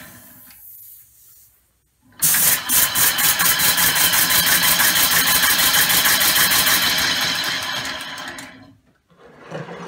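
Homemade oval compressed-air engine running on shop air. It starts suddenly about two seconds in with a fast, even pulsing, then dies away near the end as the air is cut off.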